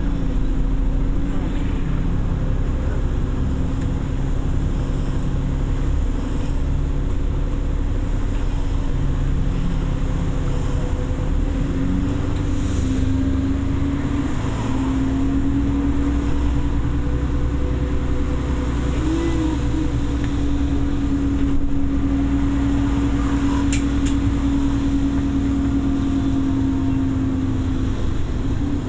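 Bus engine and drivetrain running on the move, heard from on board: a steady low rumble with a whine that rises a little about twelve seconds in and then holds. A brief click near the end.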